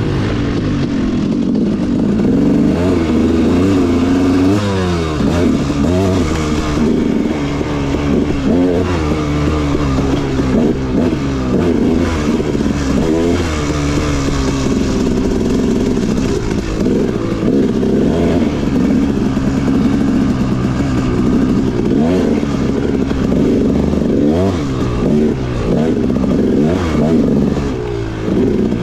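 Dirt bike engine under way on a trail, its pitch rising and falling continually as the throttle is worked on and off.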